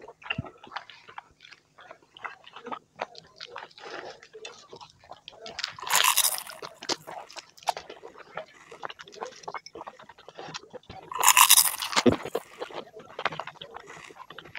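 Close-up eating sounds of fried samosa rolls being bitten and chewed: wet chewing and lip smacks with many small clicks, and two louder crunchy bursts about six and eleven seconds in.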